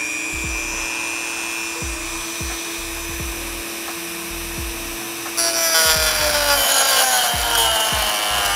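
Dremel rotary tool with a cutoff wheel spinning at high speed with a steady whine as it cuts a plastic trim tab. About five seconds in it bites harder into the plastic and turns louder and rougher, its pitch sagging under the load.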